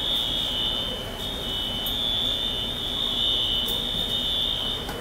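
Fire alarm sounding one continuous high-pitched tone, broken only briefly about a second in.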